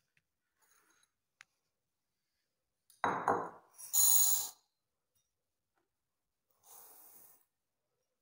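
Dry split yellow moong dal poured from a steel bowl into a ceramic bowl: a short clatter about three seconds in, then a brief hiss of grains about a second later. Near the end, rice is poured in the same way, fainter.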